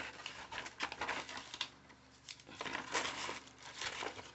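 Plastic crinkling and rustling with small irregular clicks, from handling small plastic action-figure accessory hands and their wrapping. There is a brief lull about two seconds in.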